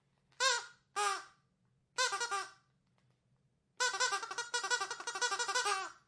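Squeaky dog toy being squeezed: two single squeaks, a quick cluster of squeaks about two seconds in, then a long run of rapid squeaks over the last two seconds.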